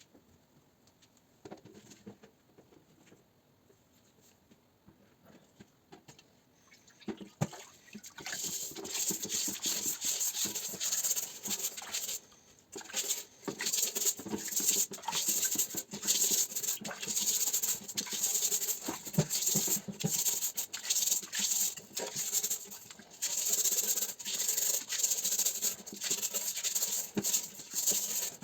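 A brush scrubbing the steel shell of a German M35 helmet clean, in rapid back-and-forth strokes. The scrubbing starts after several seconds of near silence and pauses briefly near the middle.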